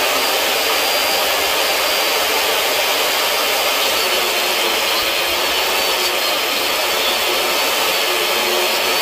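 Small DeWalt jobsite table saw running steadily with a constant whine, while pine 2x4 boards are fed through its blade to cut a shallow quarter-inch-deep groove.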